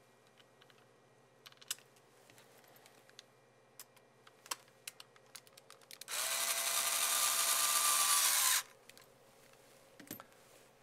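Cordless electric screwdriver driving a screw into a camera housing's base plate: a steady motor whine for about two and a half seconds, starting about six seconds in and cutting off abruptly. Before it, light clicks and taps of the screw and parts being handled, and a few more clicks afterwards.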